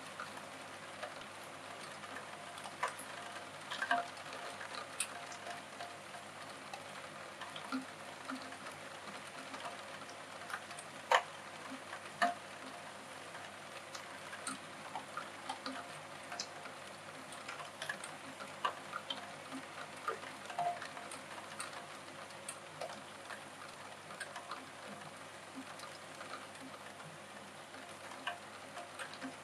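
Rain on a roof window: a steady hiss with scattered raindrops ticking on the glass and frame, one sharper tap about eleven seconds in.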